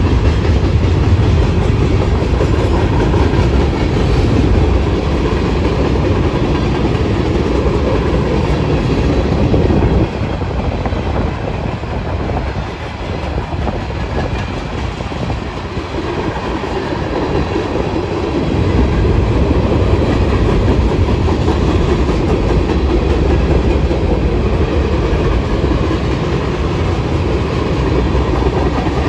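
Freight train cars rolling past, their steel wheels rumbling steadily on the rails; the sound drops somewhat for several seconds midway, then comes back up.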